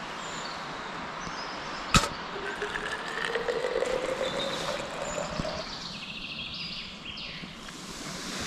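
A single sharp metallic clink from a camp-stove kettle's lid, over a steady outdoor hiss with birds calling. A faint hum rises slowly in pitch for a few seconds after the clink.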